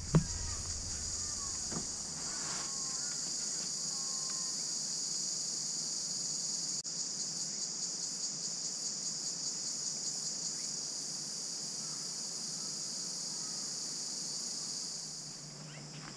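Loud, steady, high-pitched drone of insects in the bankside trees, fading out near the end, with a few faint bird chirps in the first few seconds and a brief knock right at the start.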